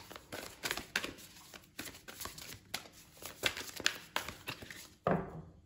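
A deck of large oracle cards being shuffled by hand: irregular rustling with quick clicks and taps as the cards slide over and strike one another.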